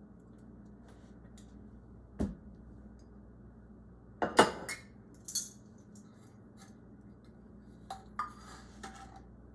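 Kitchen utensils clinking against a bowl: a few separate light knocks and clinks, the loudest a quick cluster about four and a half seconds in.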